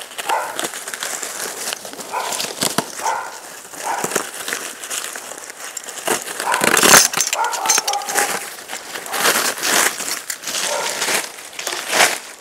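Plastic packing wrap rustling and crinkling as it is handled and pulled off a motorcycle, with irregular clicks throughout and a louder rustle about seven seconds in.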